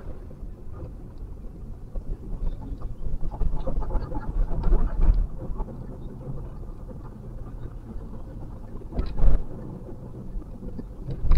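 Low rumble of road and engine noise inside a Toyota Vellfire's cabin as it moves slowly through city traffic. The rumble swells for a couple of seconds early on, and two brief thumps come near the end.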